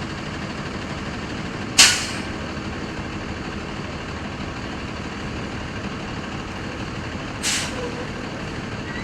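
Steady heavy-vehicle rumble with two short, sharp air-brake hisses, one about two seconds in and one near the end.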